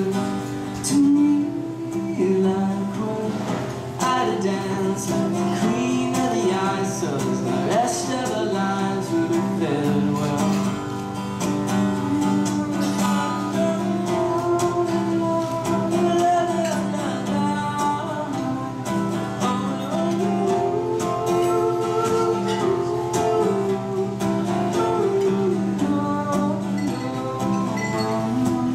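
Steel-string acoustic guitar strummed, with a man singing over it in a mellow, unamplified-sounding solo performance.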